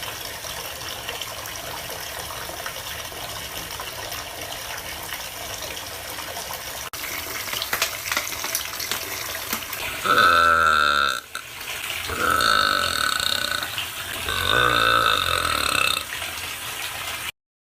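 A girl burps three times in a row, starting about ten seconds in. Each is a loud, drawn-out belch of a second or more with a wavering pitch. Before and under them runs a steady hiss.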